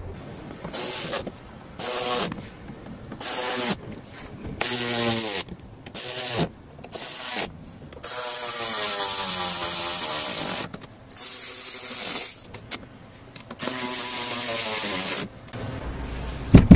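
Cordless drill-driver running in about ten short bursts, its pitch rising and falling with each, driving screws to fasten a loose plastic underbody cover. A sharp knock comes near the end.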